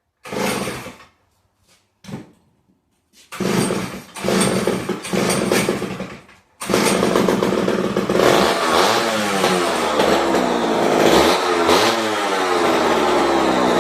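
Vintage Homelite chainsaw's two-stroke engine being started: two short bursts, then it runs for about three seconds and breaks off abruptly. It then runs again continuously and is revved up and down repeatedly from about eight seconds in.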